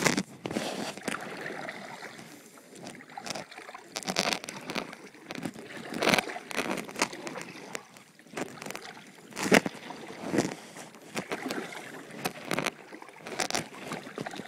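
Kayak paddle strokes: the blades dip and pull through the water, making irregular splashes and drips every second or two, with light water sloshing.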